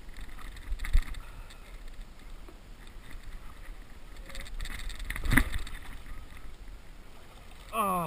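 Kayak paddling at close range: paddle strokes and water moving against the hull. A sharp knock about five seconds in is the loudest sound, with a lighter knock about a second in, and a voice begins near the end.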